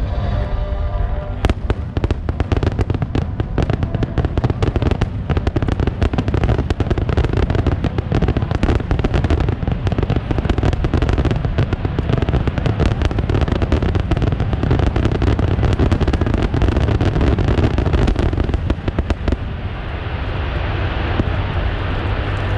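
Fireworks display in a dense barrage: rapid crackling and popping with heavy low booms, packed close together for many seconds. The barrage stops abruptly about 19 seconds in, leaving a softer, even wash of noise.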